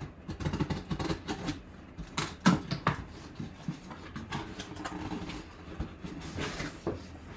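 A sealed mini-helmet box being opened and the helmet unpacked by hand: irregular clicks, knocks and rustles of cardboard and plastic packaging, with two sharper knocks about two and a half and three seconds in.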